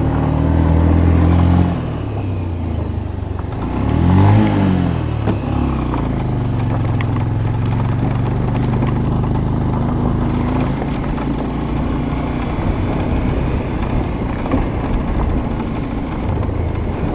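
Vehicle engine running while driving along a rough dirt road, with a steady rattle; the engine revs up and back down about four seconds in.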